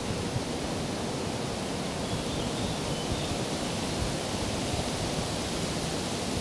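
Steady outdoor background noise: an even hiss with a flickering low rumble underneath, and a few faint short high chirps around the middle.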